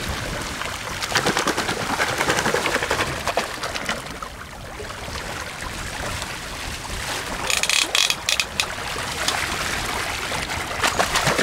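Water and wind noise on a sailing yacht at sea, broken by scattered knocks and clatters, with a short bright rattle about eight seconds in.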